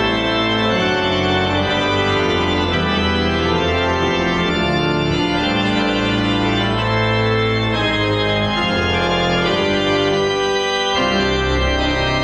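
Large three-manual Casavant pipe organ, built 1972, played at full organ with nearly every stop pulled: loud, sustained chords over a deep pedal bass, the harmony changing every second or two.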